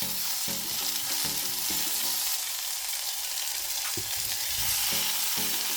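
Chicken thigh pieces sizzling in sesame oil as they are stir-fried in a pot, browning lightly on both sides.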